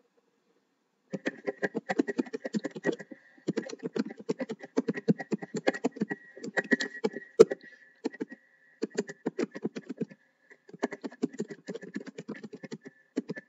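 Fast typing on a computer keyboard in runs of rapid key clicks with short pauses between them. About halfway through there is one sharper, louder key strike.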